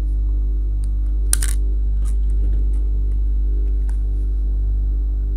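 Steady low electrical mains hum, with a few light clicks as multimeter probe tips tap on motherboard components. One sharper click comes about a second in.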